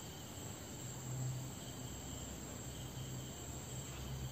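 Quiet room tone: a faint, steady high-pitched chirring or whine, with a low hum that comes in about a second in.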